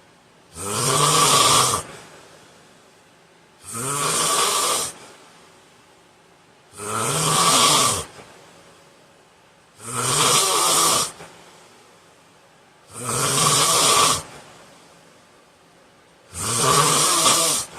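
A man snoring loudly in his sleep: six rough snores, each about a second long, coming evenly about every three seconds with quiet between them.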